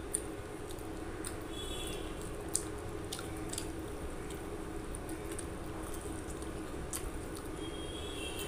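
Wet eating sounds: a mouthful of rice and chicken curry, eaten by hand, chewed with sharp, wet mouth clicks and the squish of gravy-soaked rice in the fingers. A steady low hum runs underneath.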